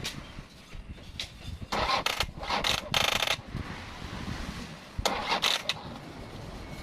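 An Isuzu 4HL1 diesel's starter being tried in short bursts. It gives clicks and brief spurts of cranking about two seconds in and again about five seconds in, and the engine never fires. The weak cranking is a sign the battery is going flat from repeated starting attempts.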